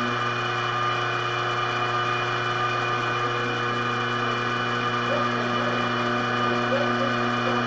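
Pantograph mill's spindle running steadily as its small cutter routes a block of wood printing type: a constant motor whine made of several held tones over an even hiss.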